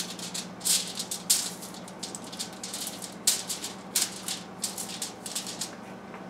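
Aluminium foil crinkling and rustling under a basting brush as olive oil is spread over it in a series of short, quick strokes.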